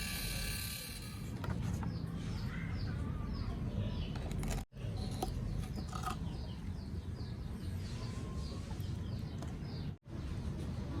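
Short high chirps repeating over a steady low rumble, with two brief cuts where all sound drops out.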